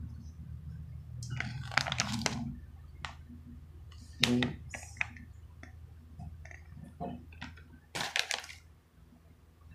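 Crinkling of a plastic dried-fruit pouch as it is handled and set down, in several separate bursts.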